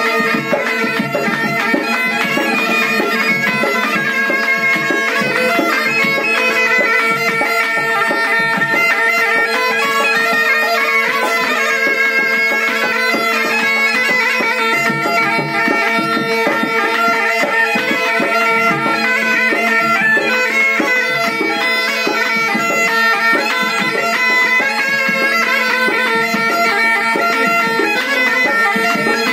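Bagpipes playing a folk melody over a steady drone. A dhol barrel drum beats a steady rhythm underneath.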